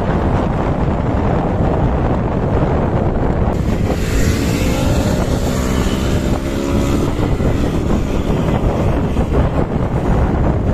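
Wind buffeting the microphone over the rumble of a motorcycle on the move. About four seconds in, a motorcycle engine rises in pitch as it accelerates for a few seconds.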